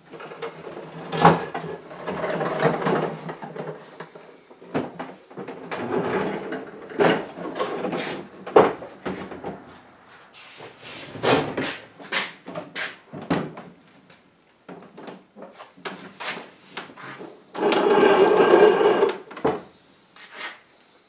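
A large oak drop-leaf table being shoved across a concrete floor and its leaves raised. Wooden feet scrape and drag in several spells, the longest near the end, between sharp wooden knocks and clunks from the leaves and legs.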